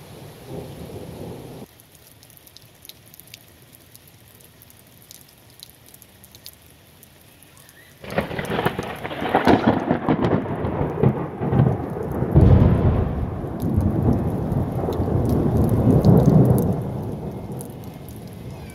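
Thunder. A low rumble dies away in the first two seconds, then about eight seconds in a loud peal breaks out suddenly and rolls on for about ten seconds, swelling twice before fading.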